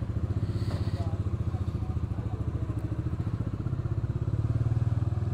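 Bajaj Dominar 400's single-cylinder engine running at low revs with a fast, even exhaust beat, getting a little louder past the middle as the motorcycle pulls away. The engine is freshly serviced, with new oil and its leaking coil cover refitted.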